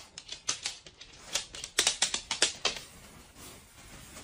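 A golden retriever's claws clicking on a wooden floor in quick, irregular taps as the dog walks about. The clicks are loudest and closest together in the middle and thin out near the end.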